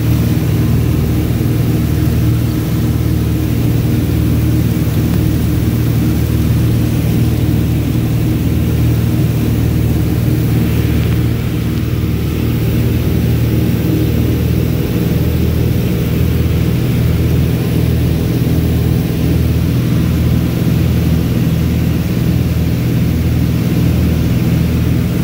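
A small propeller airplane's engine drones steadily in cruise, heard from inside the cabin. The drone is an even hum with a slow beat in its lowest note later on.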